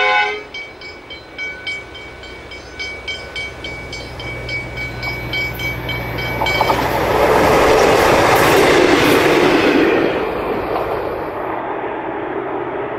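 V/Line Sprinter diesel railcar: its horn cuts off just after the start, then its wheels click over the rail joints, louder as it approaches. It passes with a loud rush of noise about seven to ten seconds in, then fades away.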